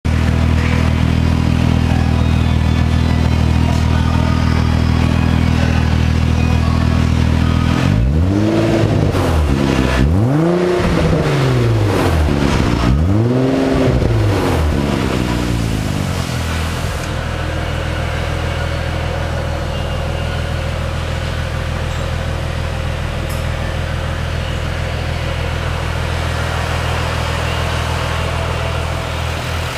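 Nissan 370Z's 3.7-litre V6, newly fitted with an AAM Competition twin-turbo kit, running at its first start after the install. It idles steadily, is blipped through three or four quick revs that rise and fall about halfway through, then settles back to a steady, slightly lower idle.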